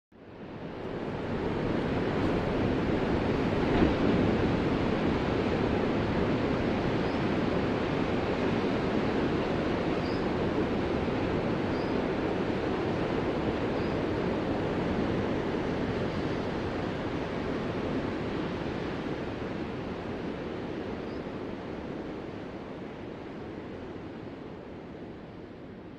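Ocean surf: a steady wash of breaking waves that comes in quickly at the start and fades slowly over the last several seconds.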